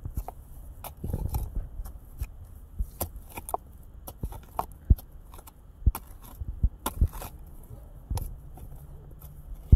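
Hand digging tool scraping and jabbing into dirt, with irregular sharp knocks and scrapes and loose soil crumbling.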